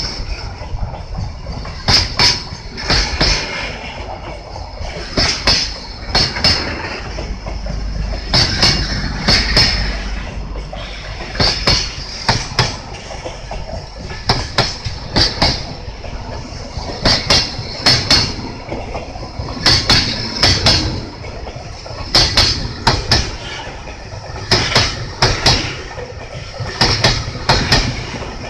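Wheels of a freight train's Koki container flat wagons clicking over rail joints as the wagons roll past, in clusters of sharp clicks about every second over a steady low rumble.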